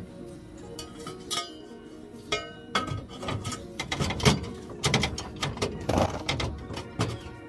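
Metal clanks, knocks and scrapes of a long aFe 5-inch exhaust pipe section being lifted into place and worked onto the joint of the pipe ahead of it. Scattered single knocks early on, then a busy run of clanks about four to six seconds in, the loudest about four seconds in.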